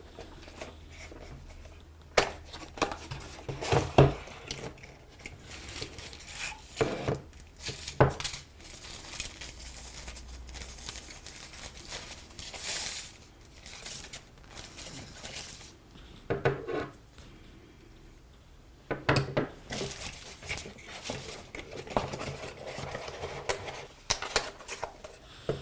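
Handling noise from unboxing a clamp-on dual headphone holder: packaging rustles and crinkles in stretches, and hard parts knock and clack against each other and the table now and then.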